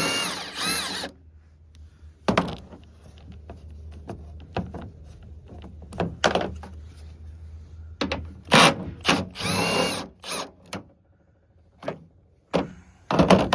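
Power impact wrench with a 1/2-inch socket backing out the tailgate latch bolts in several short bursts. Its motor whine rises and falls with each pull of the trigger, and there are clicks and rattles of metal between the bursts.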